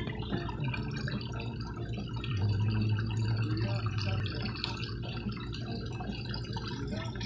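Small water splashes and drips as goldfish wriggle at the surface around a hand in a pond, over a low steady hum that swells for a couple of seconds in the middle.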